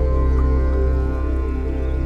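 Background music: soft new-age track with sustained low tones and held chords.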